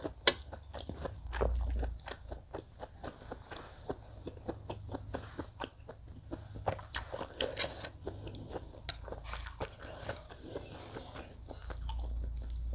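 Close-up chewing of a mouthful of soup, with many small wet mouth clicks. There is one sharp click just after the start.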